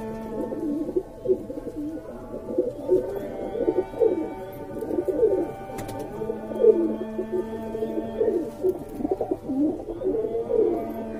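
White high flyer pigeons cooing over and over in low throaty coos that slide up and down, with a displaying pigeon puffed and bowing. A steady background hum runs underneath.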